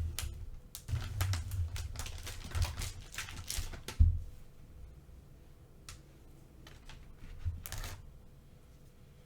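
Cookie packaging crinkling and crackling as it is handled and opened: a rapid run of small crackles, a thump about four seconds in, then quieter with one short crackle near the end.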